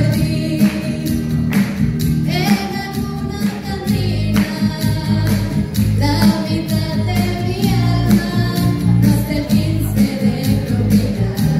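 A woman singing into a handheld microphone over amplified instrumental accompaniment with a steady beat, holding long notes.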